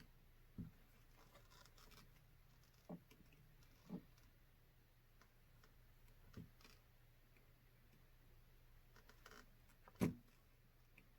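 Near silence, broken by a few faint clicks and light knocks from small kit parts and hand tools being handled while tightening a part, with the sharpest knock about ten seconds in. A low steady hum runs underneath.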